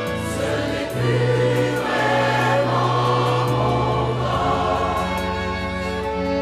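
Large mixed choir of men's and women's voices singing with string accompaniment of violins and cello; the sound swells about a second in.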